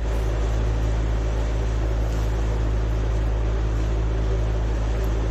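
A steady low mechanical hum with an even hiss over it, unchanging.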